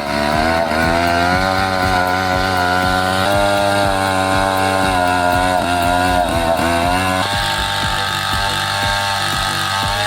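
Chainsaw running at high speed, its pitch wavering slightly as it works; the sound changes about seven seconds in.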